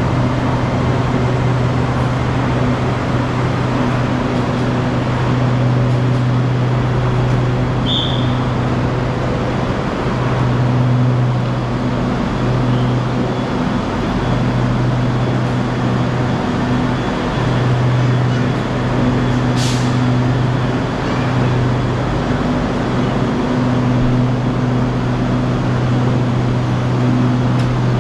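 Steady low mechanical hum, a deep drone that swells and dips every few seconds, with a brief high chirp about eight seconds in and a sharp click about twenty seconds in.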